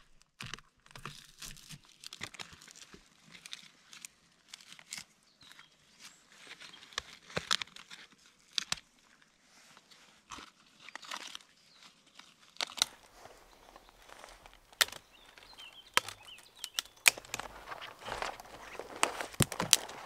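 Crackling and tearing of birch bark being peeled off a log by hand, followed by sharp snaps of dry twigs being broken and footsteps on the forest floor.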